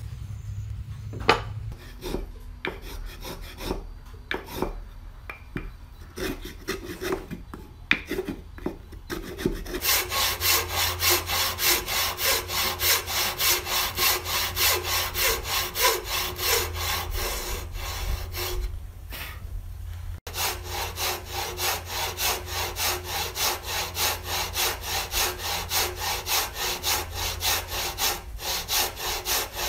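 Hand hacksaw cutting through a wooden block in steady back-and-forth strokes, about two a second, with a short pause about two-thirds of the way in. Before the sawing starts there are scattered knocks and taps as the wood is handled and set in place.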